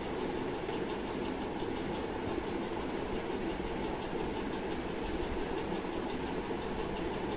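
Steady mechanical hum with no breaks, like a small motor running.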